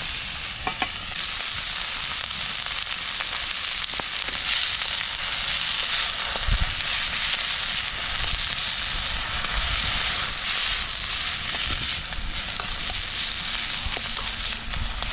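Food frying in a wok over a campfire: a steady sizzle that swells about a second in, with scattered sharp crackles.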